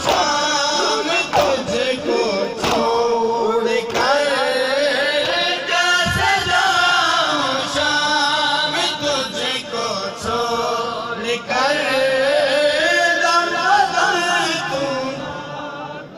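Men's voices chanting a Muharram noha (mourning lament) together, with sharp slaps now and then; it grows quieter near the end.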